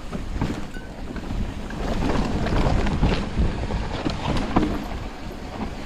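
Mountain bike riding down a dirt trail: tyre roll and the bike rattling over the rough ground with frequent sharp knocks, under heavy wind buffeting on the microphone.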